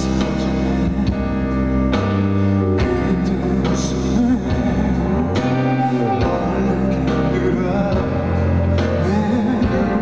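Live concert music: a male singer with a band and orchestra, long sustained bass notes under keyboards and strings, heard from the audience through the hall's sound system.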